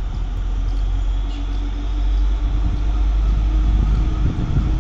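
Diesel OHE tower car approaching on the track, its engine a steady drone that climbs slightly in pitch, over a heavy low rumble.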